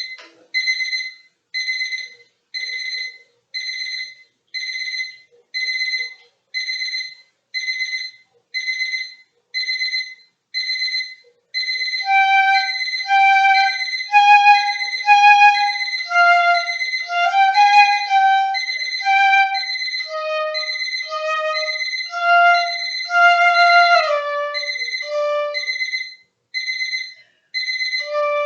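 A digital alarm clock beeps in a steady pattern of short high bursts, a little more than one a second. About twelve seconds in, a piccolo comes in and plays a lively melody over the beeping.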